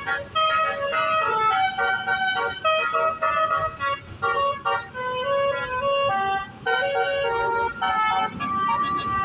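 Indonesian bus's basuri (telolet) multi-tone horn playing a melody in short stepped notes, with a few brief breaks between phrases, over a low engine rumble.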